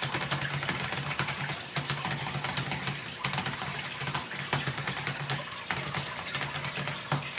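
Fast, continuous clatter of keys being typed on a keyboard, with a low hum that comes and goes underneath.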